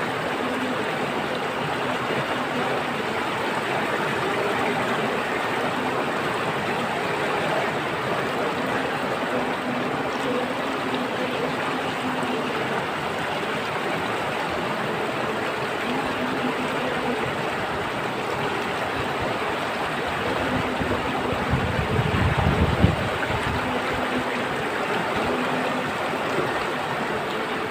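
Steady rushing of flowing stream water. A brief low rumble swells up about three-quarters of the way through.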